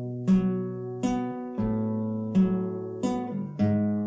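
Acoustic guitar playing a fingerpicked B minor accompaniment figure, a note or two-note chord plucked about every three-quarters of a second over a moving bass line, each note left to ring.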